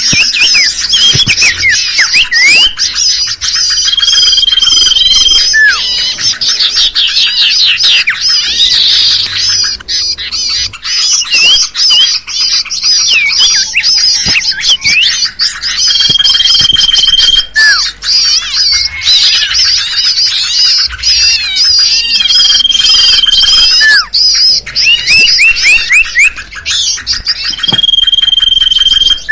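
Bird-lure recording for common ioras (cipoh): a dense, busy chorus of small songbirds chirping and trilling fast and high. A long level whistle recurs four times through it.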